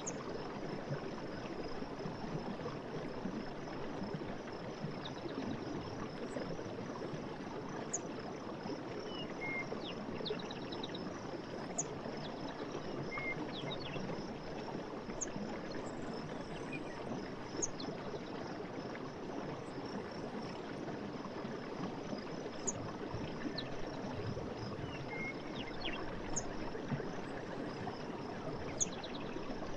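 Night forest ambience: a stream's running water as a steady rush, under a continuous high drone of insects. Short, high chirps come every couple of seconds.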